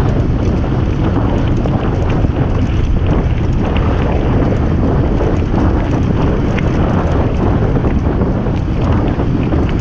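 Heavy wind buffeting on the microphone of a mountain bike riding fast downhill on a gravel track. Underneath are the rumble of tyres on gravel and small scattered rattles and ticks from the bike.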